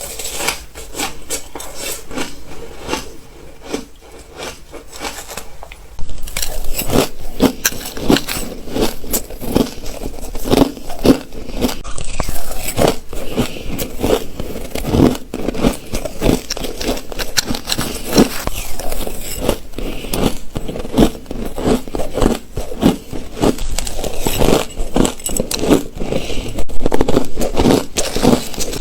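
Ice being bitten and chewed, a dense run of close crunches and crackles that gets louder about six seconds in.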